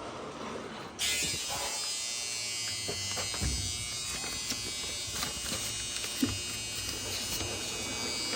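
Maytag front-load washer buzzing steadily as a diagnostic test step switches on its water heater, starting suddenly about a second in.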